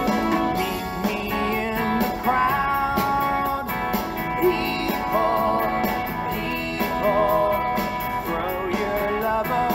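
A song playing: guitar accompaniment with a singing voice.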